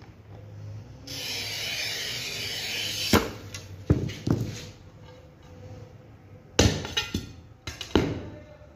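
A glass cutter's wheel scoring a sheet of 5 mm glass along a straightedge: a steady scratchy hiss from about a second in, lasting about two seconds. It is followed by a series of sharp knocks and clinks, in two groups of three, as the scored glass is handled and snapped along the line.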